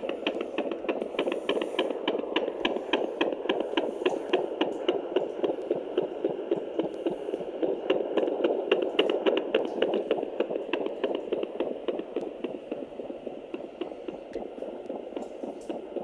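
Fetal doppler picking up the heartbeats of unborn puppies in a pregnant dog: a rapid, even whooshing pulse through the doppler's speaker, growing somewhat fainter near the end.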